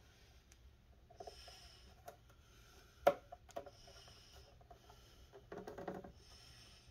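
Plastic clips on the Xbox Series X casing being pried open, with one sharp click about three seconds in and a few fainter clicks and scrapes. Steady breathing runs close to the microphone throughout.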